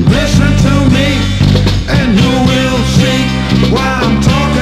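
A funk record from around 1969 to 1972, played from vinyl: a band with a steady bass line under bending melodic lines.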